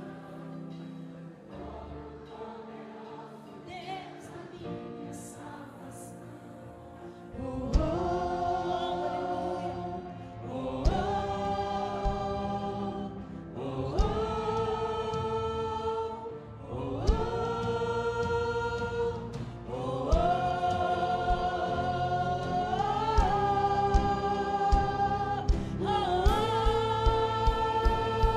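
A choir sings a gospel song with instrumental backing, softly at first and then fuller and louder from about seven seconds in, with drum hits marking the beat and coming more often near the end.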